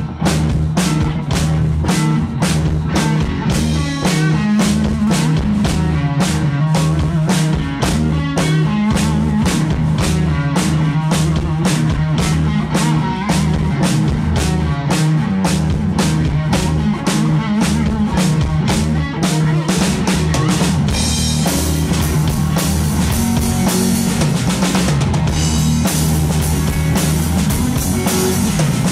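Live rock band (electric guitar, bass guitar and drum kit) playing an instrumental passage with no vocals, driven by a steady drum beat. The cymbals get louder about twenty seconds in.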